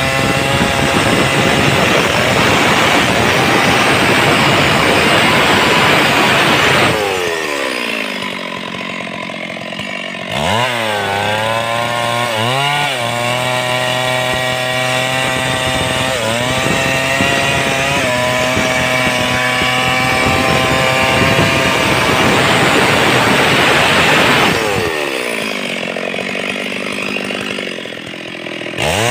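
Stihl MS 382 two-stroke chainsaw ripping lengthwise through a log at full throttle. About seven seconds in the throttle is let off and the engine note falls to idle. It revs back up with a couple of blips and cuts on at high revs. Near the end it drops to idle again and revs up once more.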